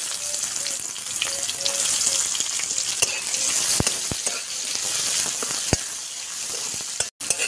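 Sliced onions sizzling in hot mustard oil in a wok, stirred with a flat spatula. There is a steady frying hiss, with a few sharp clicks of the spatula against the pan.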